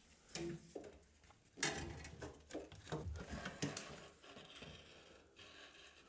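Faint scraping and rubbing of a pull cord being drawn up through a hole in the plasterboard wall cavity, in short irregular bursts with a few light knocks.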